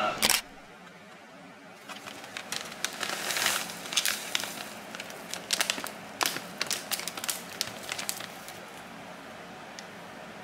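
Dried seaweed tipped from a plastic bag into a bowl: the bag crinkles and the brittle dried strands crackle and rustle in an irregular run of sharp clicks. There is a single loud click at the very start.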